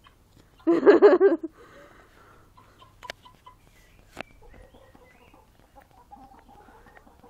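Backyard hens calling, with one loud wavering call about a second in that lasts under a second, then fainter, scattered clucks and a few sharp clicks.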